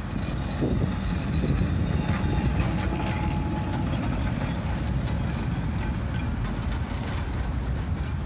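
1903 Sydney tramway electric freight car running past on its track: a steady low rumble from the wheels and running gear, with clicking over the rails and a brief steady whine as it goes by, about two to four seconds in.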